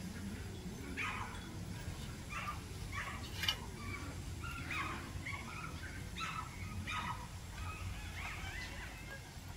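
Birds calling over and over, a short call about every half second to second, over a low steady rumble.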